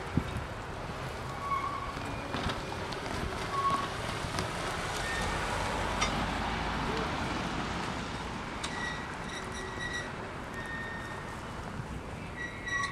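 Empty covered hopper cars rolling slowly on the rails, with short high tones here and there. A car drives past about halfway through.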